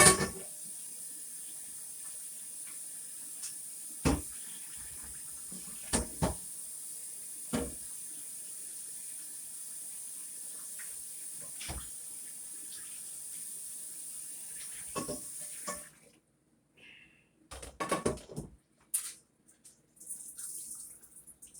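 Kitchen faucet running into the sink while a pan is washed by hand, with several sharp clanks of the pan. The water shuts off suddenly about three-quarters of the way through, and a few clatters and knocks follow.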